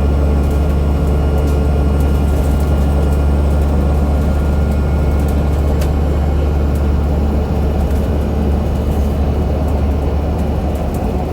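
Alexander Dennis Enviro500 MMC double-decker bus under way: a steady, heavy drone from the Cummins ISL8.9 six-cylinder diesel and driveline, with a faint high whine from the axle that fades about halfway through.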